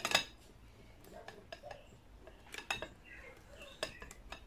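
Cheddar being grated coarsely on a flat stainless-steel grater resting across a glass bowl: scraping strokes with sharp metallic clicks and knocks, the loudest right at the start and more about two-thirds of the way in.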